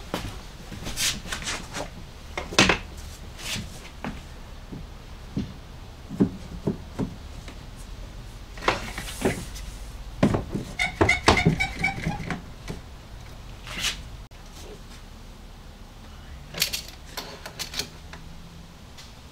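Footsteps and knocks of tools and wood being handled, then a bar clamp ratcheting tight in a quick run of clicks about ten seconds in, followed by scattered taps.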